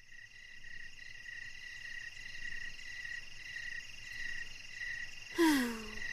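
Night-time ambience sound effect: a steady, pulsing chirping chorus that fades in and builds. Near the end a short voice sound falls in pitch.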